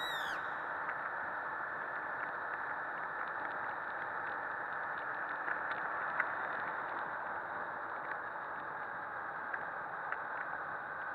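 Steady wind and road noise rushing over the microphone of a Honda CBF250 motorcycle being ridden at speed on the open road, with a high whine falling away and cutting off in the first half second. A few faint ticks sound partway through.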